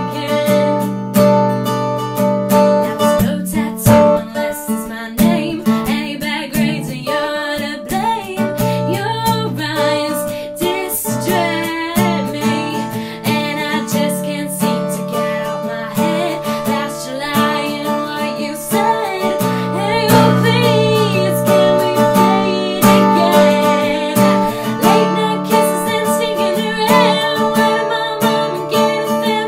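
A young woman singing with a steadily strummed acoustic guitar accompaniment.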